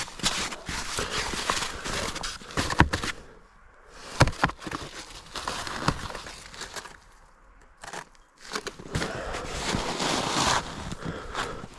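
Snow being brushed and scraped off a snowed-in machine, an uneven crunching and rustling with pauses, and a couple of sharp knocks about three and four seconds in.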